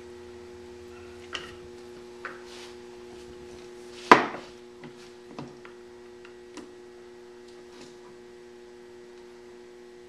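Light clicks and rubbing as a tailwheel fork is sprung over a small bushwheel and fitted to the hub, with one sharp knock about four seconds in. A steady electrical hum runs underneath.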